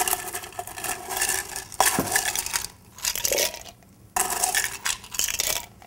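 Ice cubes scooped with tongs from a metal ice bucket and dropped into a cocktail shaker, clinking and clattering in several bursts with a short pause about three seconds in.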